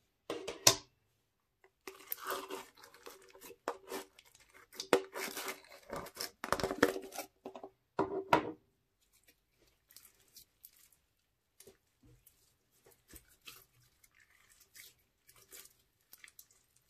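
Sticky glitter slime tearing and crackling loudly as it is pulled from a plastic tub. After about eight seconds it gives way to faint squishes and small pops as the slime is squeezed and stretched in the hands.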